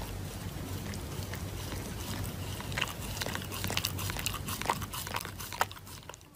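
Shiba Inu biting and chewing a paper face mask held in its paws: a run of short crackles and crinkles that grows busier after a couple of seconds, over a steady low hiss. The sound fades out at the end.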